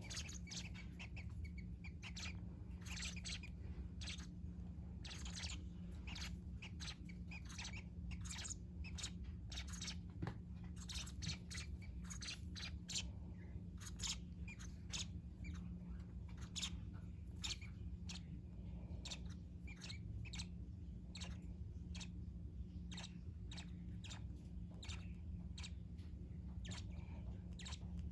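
Young Fischer's lovebirds giving short, sharp chirps in an irregular string, a few a second, over a steady low hum.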